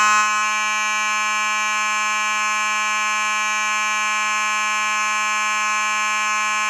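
Simplex 4903-9219 fire alarm horn sounding on test: one continuous, unbroken buzzing tone at a steady level, and it still sounds fine.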